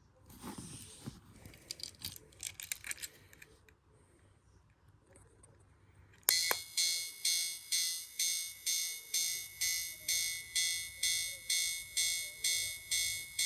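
Railway-crossing keychain toy: light clicking and rattling as it is handled, then a click about six seconds in sets off its electronic level-crossing bell, a high ding repeating about twice a second.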